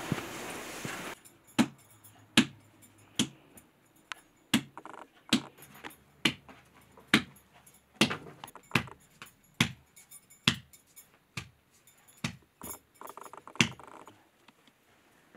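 Bread dough being worked and shaped by hand, with sharp, regular slaps of the dough about once a second. A steady hiss runs for the first second before the slaps begin.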